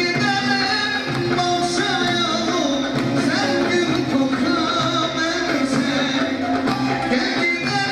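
Turkish folk song performed live: a male soloist singing with wavering, ornamented pitch through a PA, over an ensemble of bağlama (long-necked lutes) and other instruments with a steady pulsing beat in the low end.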